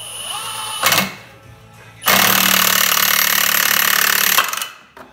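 Cordless Milwaukee Fuel impact wrench hammering a clutch puller bolt into a Yamaha RX1 snowmobile's primary clutch, pressing the clutch off its shaft. A short burst about a second in, then a steady hammering rattle for a little over two seconds that stops abruptly.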